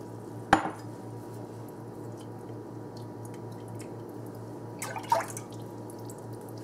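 Milk poured from a rinsed coconut milk can into a slow cooker crock, trickling and dripping faintly over a steady low hum. A sharp knock comes about half a second in.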